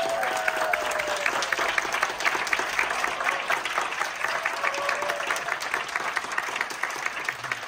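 Audience applauding: many people clapping at once, a dense steady patter that eases off slightly near the end.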